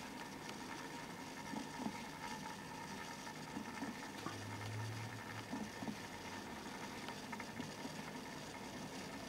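Small electric motor of a rotating display turntable humming steadily, with a constant high whine, scattered faint ticks and a brief deeper hum near the middle.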